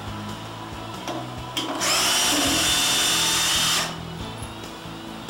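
Cordless drill-driver running for about two seconds, its motor whine rising briefly as it starts, then stopping suddenly, as it turns the applicator tool free of the spotlight box.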